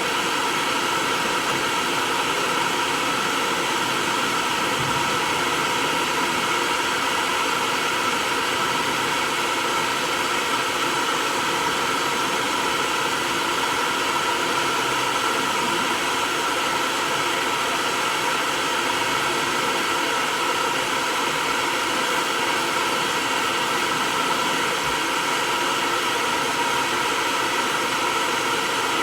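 Hair dryer running steadily with an unchanging whir, blowing on a cat's fur to dry it.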